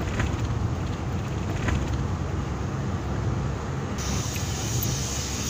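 A car in motion heard from inside the cabin: a steady low rumble with no break. About four seconds in, a brighter hiss joins it.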